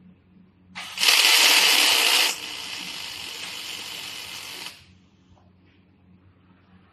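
Welding arc of an automatic scaffolding-crossbar welding machine, a harsh crackling hiss that starts about a second in. It is loud for its first second and a half, then drops to a lower, steady level before cutting off near the five-second mark.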